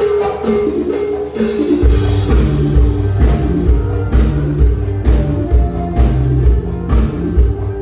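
Instrumental band music: a melodic line opens, then heavy bass and drums come in about two seconds in and keep a steady beat.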